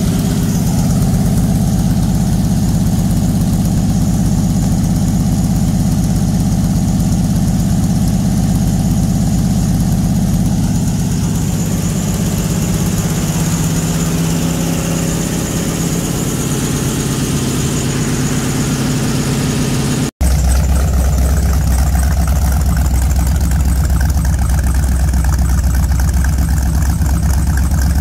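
Freshly built Mopar LA 360 small-block V8, with a Comp Cams 268XE cam and headers into short resonator pipes, running steadily at idle on an engine run stand. The sound drops out for an instant about twenty seconds in, then resumes deeper and heavier in the low end.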